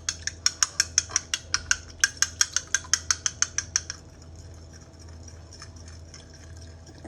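Eggs and water being whisked in a bowl for an egg wash: quick, even clicks of the utensil against the bowl, about seven a second, stopping about four seconds in, after which only a few faint taps remain.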